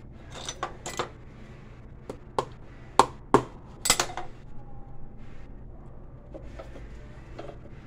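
Sharp metal taps and clinks of hand tools at a cobbler's bench while a rubber heel lift is fitted. There are about six of them in the first four seconds, the loudest two close together about three seconds in. A low steady hum sits underneath.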